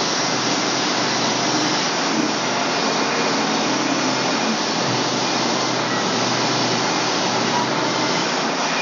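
Portable band sawmill running steadily, its engine and band blade sawing a pine log into a cant; an even, unbroken noise with a low hum underneath.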